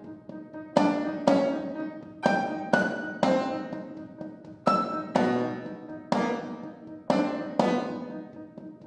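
Piano and percussion playing slow contemporary chamber music: about ten separate struck notes and chords, each sharp at the start and left to ring and die away, with a low drum thud about halfway through.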